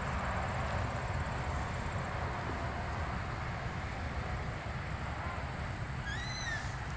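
Steady low rumble and hiss of outdoor background noise, with one short high chirp that rises and falls near the end.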